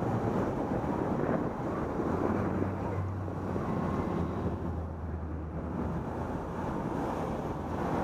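Wind rushing over a bicycle camera's microphone while riding in slow traffic, over a steady low engine hum from the cars alongside.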